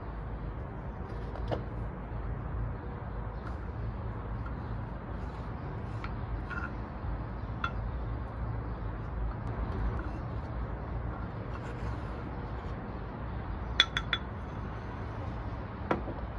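A glass pan lid and a spoon clinking and tapping against a frying pan while its contents are scooped out, a few light knocks spread through, the loudest a quick run of three clinks about fourteen seconds in, over a steady low background rumble.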